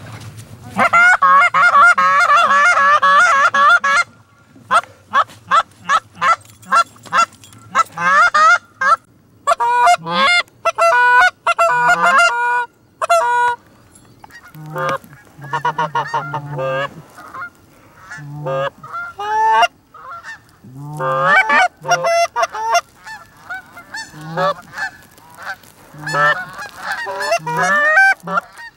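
Canada goose honks and clucks, loud and dense and overlapping for the first few seconds, then coming in shorter runs of separate notes with pauses between them.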